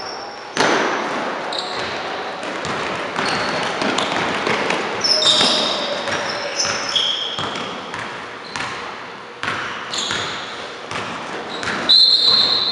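Basketball bouncing on a hardwood gym floor, with sneakers squeaking in short high chirps and voices calling out, all ringing in a large gym.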